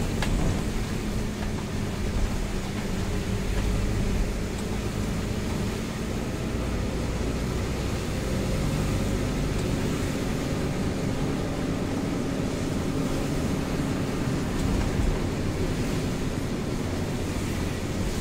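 Mitsubishi Fuso truck heard from inside its cab while driving in rain: a steady diesel engine hum under an even hiss of tyres on the wet road and rain. The engine note shifts slightly as it drives, and there is one short click right at the start.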